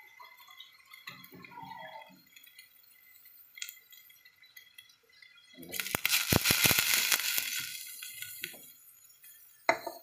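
Water pouring into a pot of beef and broth: a loud splashing rush that starts a little past halfway and lasts about three seconds, then tails off. A single sharp knock comes near the end.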